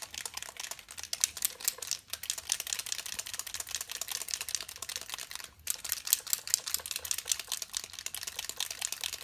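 Army Painter Speedpaint dropper bottle being shaken hard, the mixing balls inside rattling in a rapid stream of clicks to mix the unshaken paint, with two short breaks about two seconds in and five and a half seconds in.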